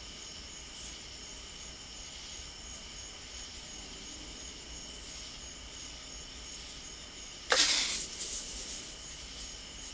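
Steady night chorus of crickets, broken late on by a sudden loud hiss from an animal lasting about half a second, trailing off in a couple of fainter hisses.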